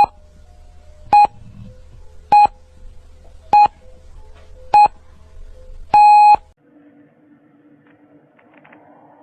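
Radio time-signal pips: five short electronic beeps a little over a second apart, then a longer sixth beep, over a low hum. Near the end a siren begins to wind up, still faint.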